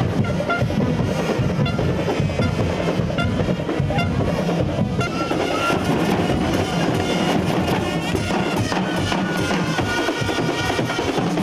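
Carnival marching band playing in the street: brass horns sounding short notes, then longer held ones, over steady drumming.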